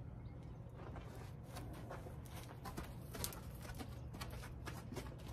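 A horse's hooves stepping on dirt as it walks out on a lead rope: scattered, irregular light knocks and ticks over a steady low rumble.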